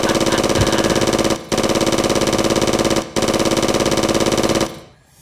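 A loud electronic buzzing tone pulsing rapidly, about ten pulses a second, at one steady pitch. It is broken by two very short gaps and fades out near the end.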